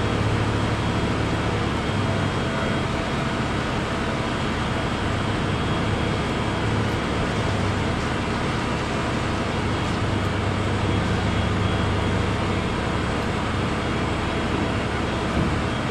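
Steady low engine hum with no breaks, its level wavering slightly.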